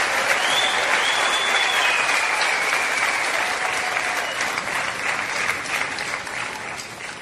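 Audience applauding, with a few cheers and whistles gliding above the clapping; the applause fades away gradually toward the end.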